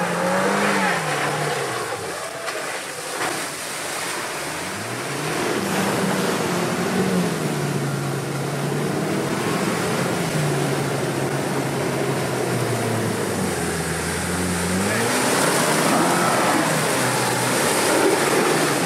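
Land Rover Defender 90 P300's 2.0-litre turbocharged four-cylinder petrol engine revving up and down under load as the SUV drives through a muddy, water-filled rut, with a steady rush of mud and water splashing under the tyres. The engine pitch rises near the start, again about five seconds in and near the end.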